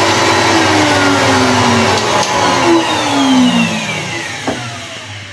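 Table-mounted router's motor running at speed, then switched off about two seconds in and winding down, its pitch falling steadily as it coasts to a stop.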